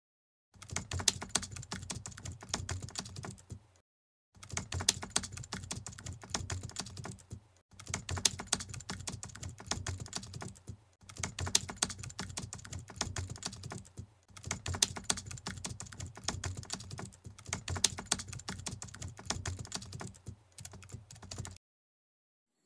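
Computer keyboard typing sound effect: rapid, continuous key clicks in runs of about three seconds, with a short silence about four seconds in, stopping about a second before the end.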